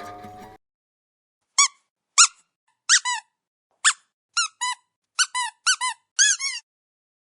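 A squeaky dog toy being squeezed: about a dozen short squeaks, some single and some in quick pairs, each one rising and falling in pitch.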